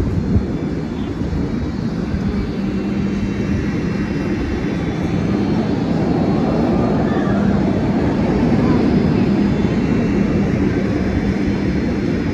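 A spinning chair swing ride running: a steady mechanical drone with a low hum under a rushing whoosh, growing slightly louder about halfway through, with faint voices.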